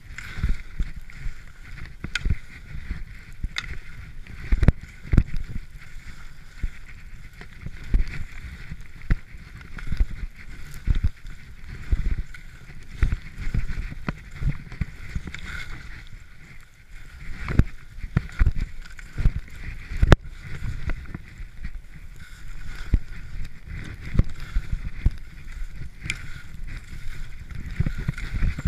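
Skis running through deep fresh powder, heard from a GoPro on the skier: a steady low rumbling rush with a hiss, broken by frequent irregular thumps and knocks from turns and bumps.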